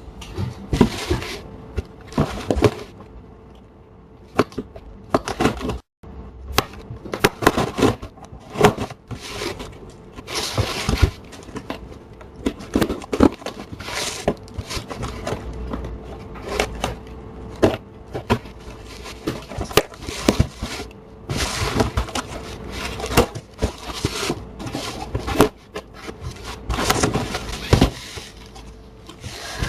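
A cardboard box and its packaging being opened and handled by hand: a long run of irregular crackling, rustling and scraping with sharp knocks, under a faint steady hum.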